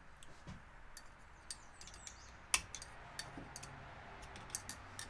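Oil-seal circlip being worked into its groove in the outer tube of a 2021 Honda CRF250R front fork: a scatter of light metallic clicks and ticks, the sharpest about halfway through.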